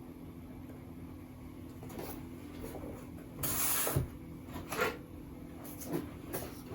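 Objects being handled: a short scraping rustle about three and a half seconds in, followed by a few light knocks and clicks, over a steady low hum.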